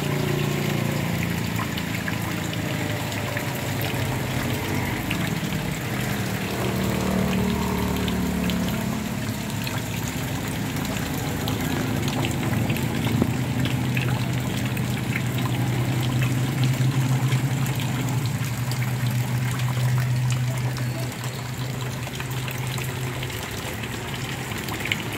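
Rain that has eased, falling steadily onto standing flood water: a continuous even hiss of drops. A low steady hum runs underneath for much of the time.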